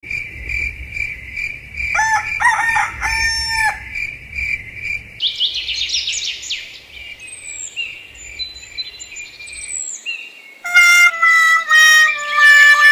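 A rooster crows twice, about two and three seconds in, over steady repeated bird chirps; then songbirds sing with quick falling notes. Near the end a string of held, pitched notes comes in like a simple tune.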